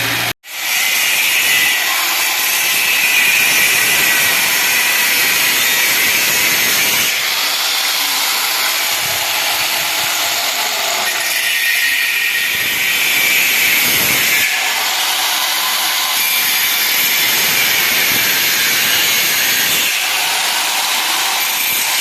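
Power tool cutting steadily into the gate door, making the opening for the door lock cylinder at the marked spot.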